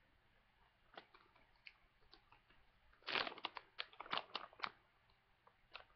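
Plastic treat pouch crinkling as it is handled: scattered sharp crackles, with a dense, louder cluster of them about three seconds in.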